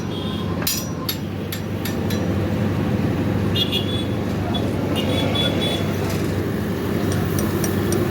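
Steady road-traffic rumble, with a few sharp clicks in the first two seconds and two short high-pitched tones about halfway through.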